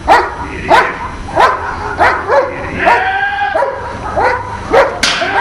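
A dog barking repeatedly, a short bark about every two-thirds of a second, with one longer drawn-out call near the middle.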